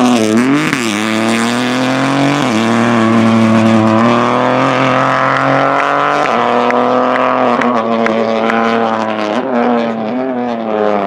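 Peugeot 208 rally car's turbocharged three-cylinder engine on a special stage. The revs dip and pick up as it slides through a hairpin, then it pulls away hard with the engine note jumping at each gear change, several times.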